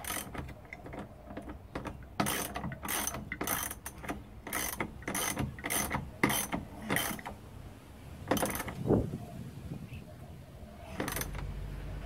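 Socket ratchet wrench clicking in repeated short strokes, about three every two seconds through the middle, then slowing to a couple of spaced strokes. It is doing up a seat belt anchor bolt tight on the door pillar.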